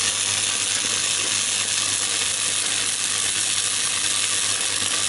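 Electric arc welding on a turbo exhaust manifold: a steady crackling sizzle from the arc with a low hum underneath, running without a break.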